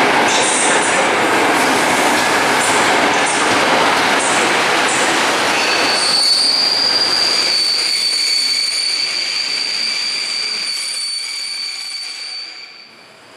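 Passenger coaches of a locomotive-hauled train rolling slowly past on the rails, at first a loud, even wheel rumble. From about halfway a steady high-pitched squeal from the wheels and running gear takes over, fading near the end as the train slows.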